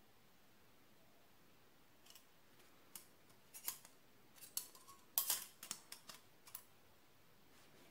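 Stainless-steel mixer beaters clicking and clinking against each other and a threaded steel rod as they are handled. A string of short, sharp ticks starts about two seconds in, and the loudest comes just past the five-second mark.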